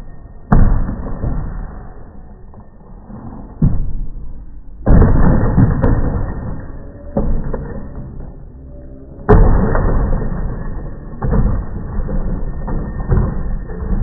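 A hollow plastic ride-on toy car of the Cozy Coupe kind tumbling and rolling down wooden deck steps. It makes about seven dull, heavy knocks a second or two apart, each one sudden and then slowly fading.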